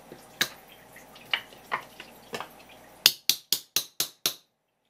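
Scattered wet taps and drips as a live conger eel is held on a wet wooden cutting board. About three seconds in, the background cuts out and six sharp, evenly spaced clicks follow, roughly four a second.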